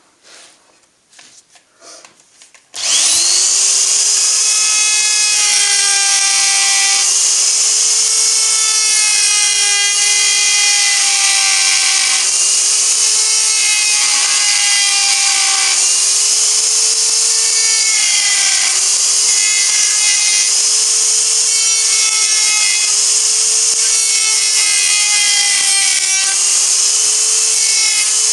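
Makita GD0600 electric die grinder starts about three seconds in, after a few light knocks, and runs with a steady high whine. Its pitch dips slightly again and again as the burr cuts into the cast-aluminium starter motor end case, grinding out cracks so the weld filler has somewhere to go.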